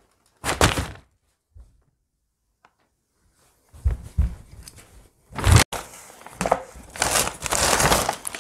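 Paper takeaway bag rustling and crinkling as it is handled over a wooden table, with a few knocks as things are set down and a sharp click a little past halfway.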